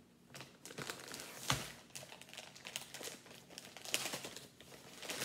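White plastic poly mailer bag crinkling and rustling as it is handled and pulled open, with a sharp thump about a second and a half in.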